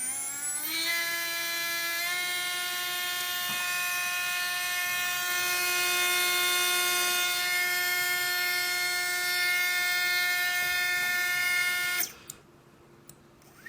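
Readytosky 1804 brushless drone motor whining as it finishes spinning up. It steps up in speed about two seconds in, holds a steady high whine, and stops abruptly near the end. The uploader blames these motors' bad bearings and strong vibration.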